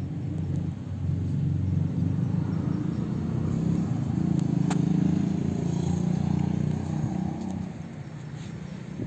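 Tractor engine running steadily with a low, even rumble, driving the borewell lifting machine through its PTO shaft; it eases off about a second before the end. A single sharp click sounds about halfway through.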